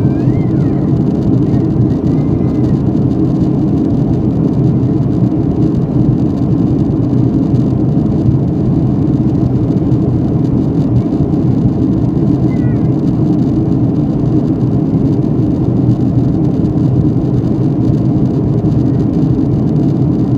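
Airliner cabin noise in flight: a steady, loud, low drone of engines and rushing air that does not change.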